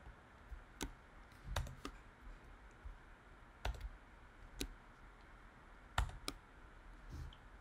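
Faint, sparse typing on a computer keyboard: about seven single keystroke clicks at uneven gaps of a second or so, with no run of fast typing.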